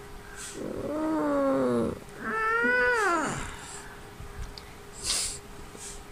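Sleepy toddler whining twice on being woken: two drawn-out moans, each rising then falling in pitch, the second higher. Two short breathy hisses follow near the end.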